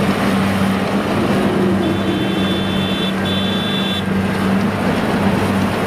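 Kubota DC-70G combine harvester's diesel engine running steadily under load as the machine works through soft, muddy paddy, a deep even drone. A faint high steady tone sounds twice, about a second each, near the middle.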